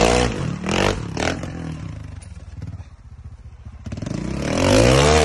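Trials motorcycle engine blipping the throttle in short bursts, the revs rising and falling sharply. It drops to a lower, quieter running note for a second or two, then revs up in a longer, louder burst near the end.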